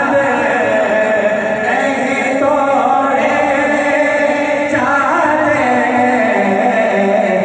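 Men's voices singing a devotional Urdu chant together in a steady, continuous flow.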